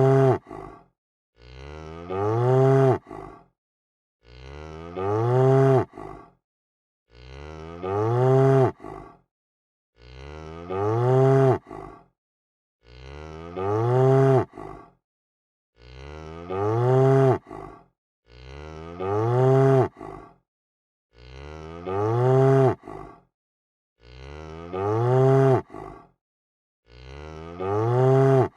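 A cow mooing over and over, the same moo repeated about every three seconds: each call starts quieter, swells louder and ends with its pitch bending down.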